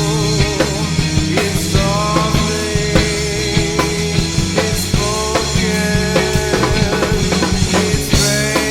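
Rock music with drums and sustained guitar tones at a steady loud level.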